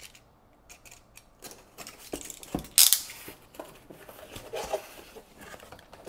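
Utility knife slitting the seal of a small cardboard box: a run of scratchy scrapes and small clicks, with one loud, sharp rasp nearly three seconds in as the blade cuts through.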